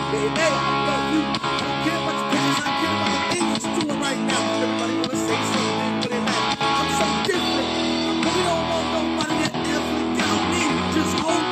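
Guitar music: strummed chords that change every second or so, with no pause.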